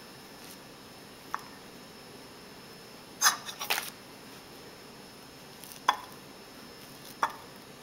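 Quiet handling of a peeled banana and a paring knife: a short rustling scrape about three seconds in, then a few faint single clicks as the knife starts cutting the banana.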